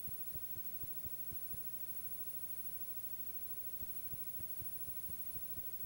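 Steady low hum and hiss with a thin high whine, under faint low thumps at about four a second that pause for about two seconds mid-way and then resume.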